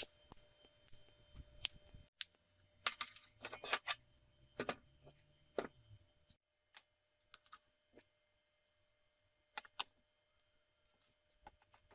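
Metal parts and hand tools being handled, giving scattered sharp clinks and knocks, with a cluster of them about three to six seconds in and two more near the end, over a faint steady hum.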